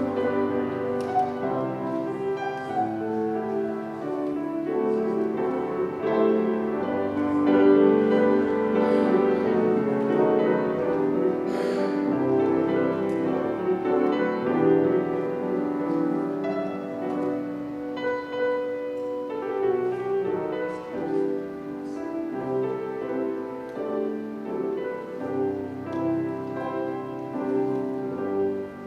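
Piano playing offertory music in a church service, sustained chords with a melody above. A brief noise sounds about twelve seconds in.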